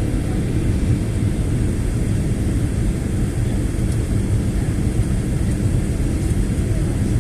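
Steady, loud low drone of an airliner's engines and airflow heard from inside the cabin, with a faint steady hum and a thin high whine over it.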